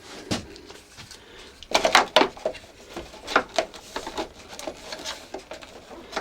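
Hard plastic parts of a vacuum cleaner clicking and knocking as they are handled, with a cap and hose attachment being fitted back onto the top of the machine. There is a cluster of sharp knocks about two seconds in, then scattered lighter clicks. The cleaner's motor is not running.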